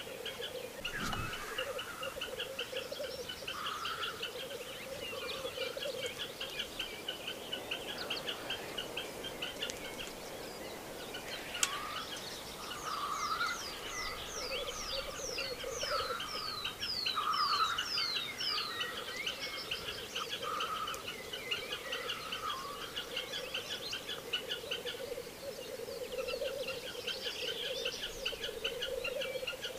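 Black grouse cocks lekking: a continuous chorus of low, bubbling rookooing from several males. About twelve seconds in, another bird adds a run of quick falling whistles.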